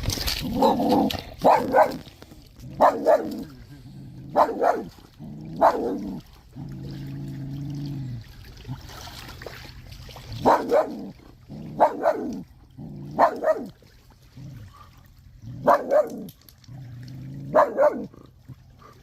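A dog barking repeatedly: about ten single barks, spaced a second or two apart.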